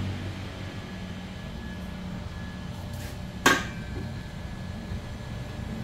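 Low steady machine hum, with one sharp knock about three and a half seconds in.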